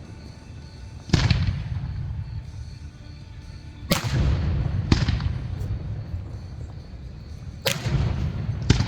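Aerial fireworks shells bursting: about five sharp booms, in pairs a second apart, each trailing off in a low rolling rumble.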